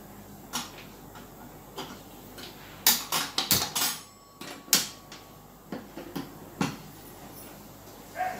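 Kitchen utensils and containers clinking and knocking as they are handled on a cooktop. The knocks are scattered, with a quick run of clatters about three to four seconds in.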